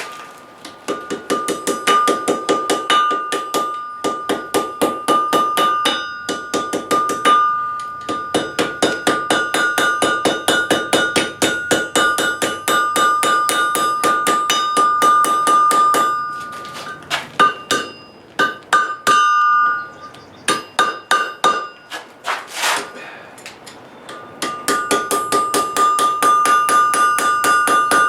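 Hand hammer striking metal on an anvil in rapid, evenly paced blows, the anvil ringing with a steady high tone under the strikes. The blows pause briefly a few times, turn sparser and more irregular for a while, then resume a steady rhythm near the end.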